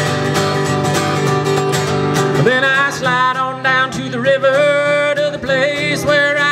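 A man singing a country song to his own strummed acoustic guitar, with a new sung line starting about two and a half seconds in.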